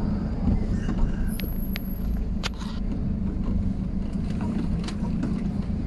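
Car driving at low speed, heard from inside the cabin: a steady low rumble of engine and tyres, with a few light clicks and knocks in the first half.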